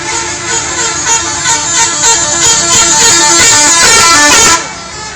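Bus 'telolet' multi-tone musical horn playing a quick tune of rapidly changing notes, growing louder, then cutting off abruptly near the end.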